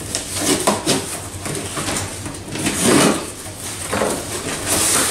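A small cardboard box being cut and opened by hand: cardboard flaps and packing scraping and rustling in uneven bursts, the loudest about three seconds in.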